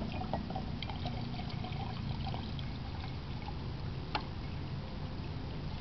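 Two-stroke gas pouring from a container into a glass jar of vegetable oil: a steady trickle of liquid with a few faint clicks.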